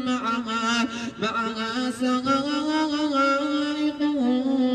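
A young man's voice reciting the Quran in the melodic, chanted style of tilawa, holding long drawn-out notes with ornamented turns, amplified through a microphone and loudspeaker. Near the end he begins the next phrase of the verse.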